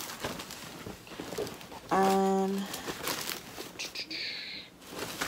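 Plastic packaging crinkling and rustling as items are handled. About two seconds in, a short steady pitched tone, the loudest sound here, lasts under a second.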